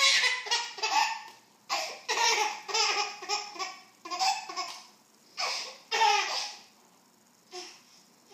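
A baby laughing hard in several bouts of quick, high-pitched pulses, with short pauses between the bouts.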